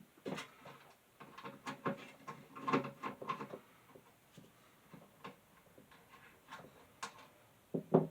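Box fan housing and its small parts being handled and worked on by hand: a quick flurry of clicks and knocks, then scattered light taps, and two sharp knocks near the end.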